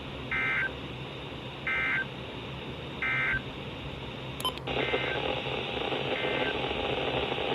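EAS end-of-message data tones from a NOAA Weather Radio broadcast: three short, identical warbling bursts about a second and a half apart, marking the close of the warning. About four and a half seconds in there is a click, then radio hiss rises, with two fainter bursts under it.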